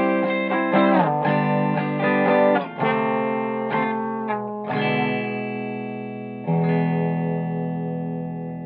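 Agile AS-1000 electric guitar played through a 1965 Ampeg tube amp, strumming a run of chords that change about every second. A last chord is struck about six and a half seconds in and left to ring, fading slowly.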